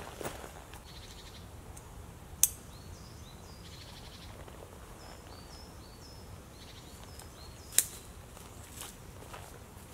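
Small woodland birds chirping with short repeated high notes and little trills. Two sharp clicks about two and a half and eight seconds in, from the rucksack's plastic strap buckles snapping shut, with a brief rustle of the pack at the start.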